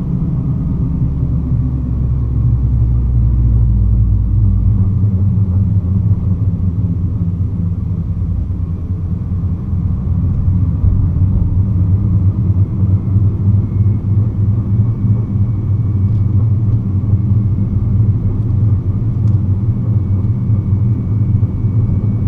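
2009 Nissan GT-R's twin-turbo V6 and drivetrain rumbling in slow driving, with an extra deep drone for the first five seconds or so. The owner hears a shuddering from the drivetrain when lifting off the throttle at low speed.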